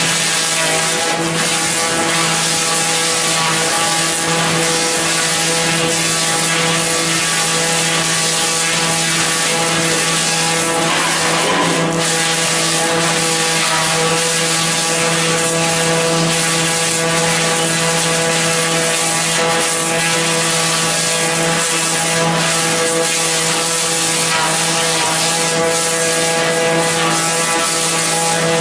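Knot-removing log debarking machine running steadily: a constant mechanical drone with a steady pitch over a dense rushing noise of the cutters working, with a brief knock about twelve seconds in.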